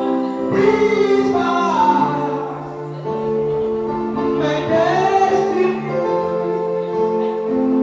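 Gospel music: sung vocals, possibly a small choir, over sustained keyboard chords.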